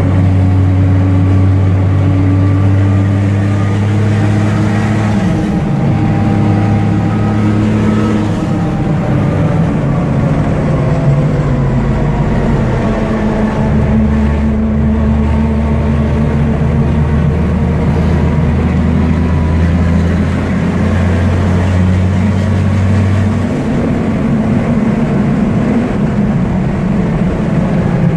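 MAN Dakar race truck's diesel engine heard from inside the cab, running hard around the circuit. Its low note holds steady and then jumps to a new pitch several times as the truck takes the corners.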